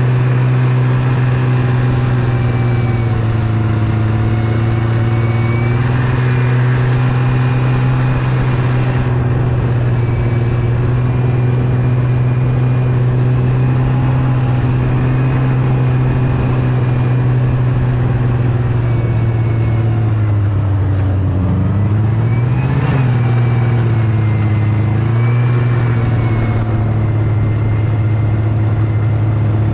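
Yamaha Venture snowmobile engine running steadily while under way. Its pitch dips and comes back up about three-quarters of the way through.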